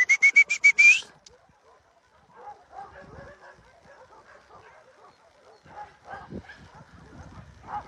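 A dog yipping rapidly: about eight short, high-pitched yips packed into the first second. Faint rustling and shuffling of movement follows.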